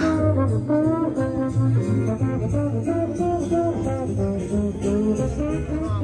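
A street musician playing a melody on trombone, the notes held and stepping up and down, with bass notes underneath.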